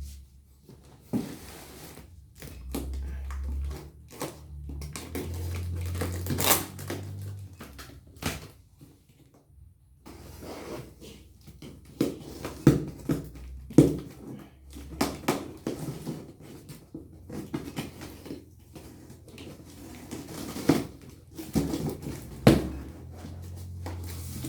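Unpacking and handling a boxed mini rack: irregular clicks, knocks and crinkling of packaging and parts, with some low handling rumble.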